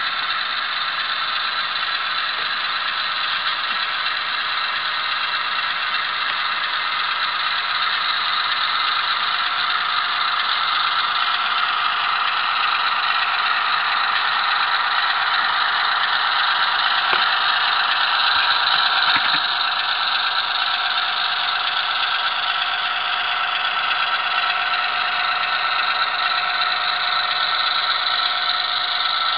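HO-scale model diesel locomotive's engine sound, played through its small on-board speaker: a steady idle-like running with a thin, tinny tone and no deep bass. It swells slightly midway and shifts a little in pitch near the end.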